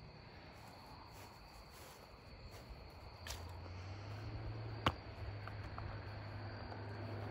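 Night insects, crickets, giving a steady high trill, with a low hum that grows louder from about halfway and a single sharp click about two-thirds of the way through.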